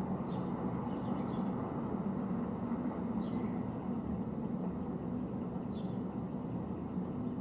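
A field recording played back through loudspeakers: a steady low rumble with short, high, falling chirps every second or two.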